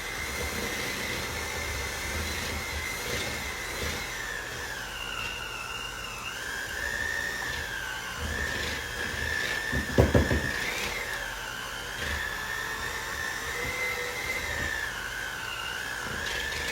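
Electric hand mixer running steadily, its beaters whipping cream cheese icing, the motor's whine wavering in pitch as the load changes. There is a short knock about ten seconds in.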